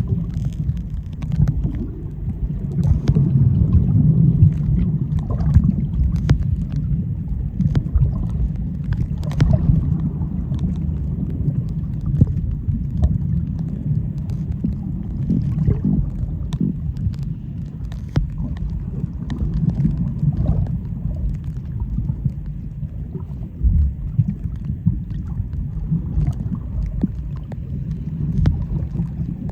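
Underwater sound of the sea picked up by a submerged camera: a steady low churning rumble of moving water, with scattered sharp clicks and crackles throughout.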